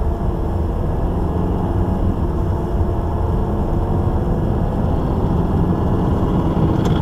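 Volkswagen Tiguan on the move: a steady low rumble of road and running noise.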